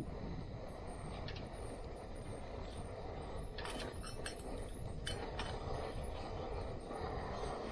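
Camp cooking gear being handled beside a stove: a few short clicks and knocks in the middle, over a steady rushing noise.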